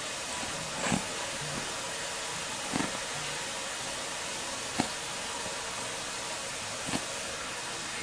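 Steady hiss with four short soft knocks spaced about two seconds apart: a toy poodle scuffling at and mouthing a hand under a bed.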